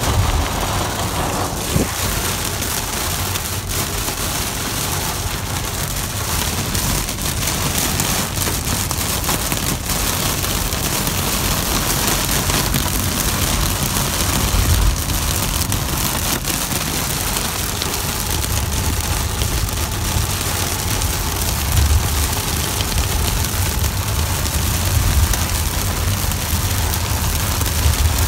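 Heavy rain beating steadily on a car's roof and windscreen, heard from inside the car, with a low rumble underneath.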